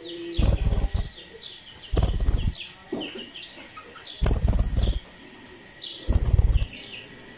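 Parakeets chirping in many short, high calls, with four louder bursts of wing flapping about two seconds apart.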